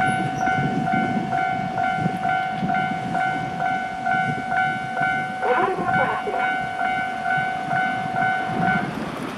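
Japanese level-crossing warning bell ringing rapidly at about three dings a second over the rumble of a train passing over the crossing. The bell stops shortly before the end.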